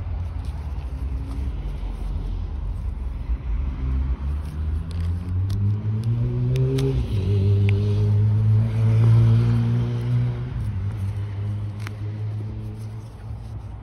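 A car engine running close by, its drone rising in pitch and level about seven seconds in, loudest a couple of seconds later, then easing off. A few sharp metallic clicks of a screwdriver working on the clutch master cylinder sound over it.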